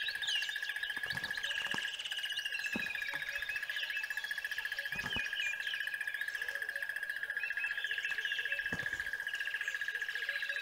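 Birds chirping and calling over a steady, rapidly pulsing high trill, with a few soft low thumps scattered through.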